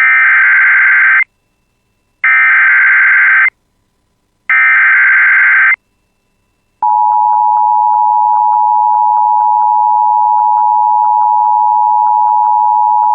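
Emergency Alert System header: three short bursts of SAME digital data tones, each lasting about a second with about a second of silence between them. About seven seconds in, a steady attention tone starts and holds, announcing the alert.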